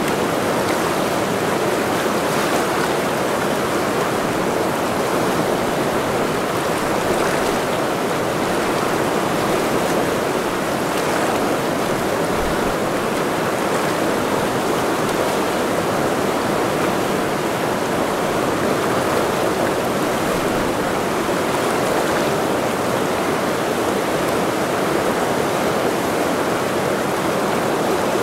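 The Ursul, a fast mountain river, rushing steadily with an even, unbroken water noise.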